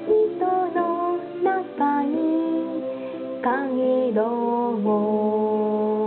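Karaoke backing music with no words sung: a lead melody of held notes sliding between pitches over a sustained accompaniment.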